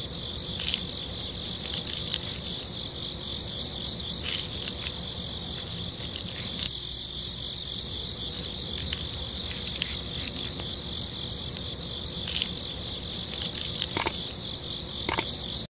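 Steady high-pitched chirring of insects, with a few faint light taps and clicks scattered through it, the sharpest two near the end.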